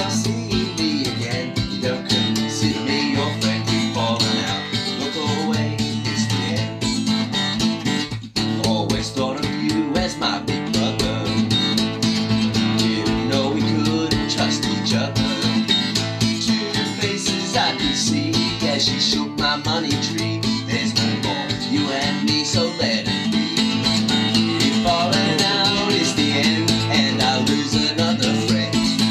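Acoustic guitar strummed steadily in a country, honky-tonk style, with a man singing over it.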